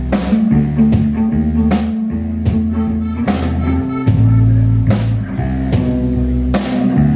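Rock band playing live: electric guitar and bass over a drum kit, with a cymbal crash on a steady beat a little more than once a second.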